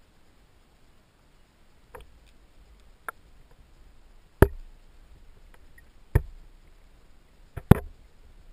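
Irregular sharp knocks, about six of them, the loudest about halfway through and near the end, over a faint low rumble, picked up by a camera under water.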